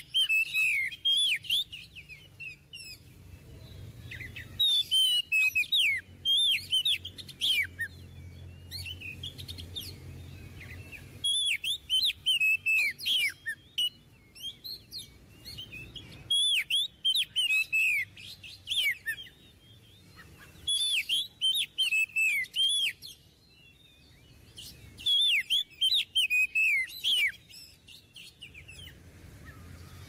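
Oriental magpie-robin (kacer) in full song: repeated phrases of quick, high, sliding whistled notes, each phrase two to three seconds long, with short pauses between.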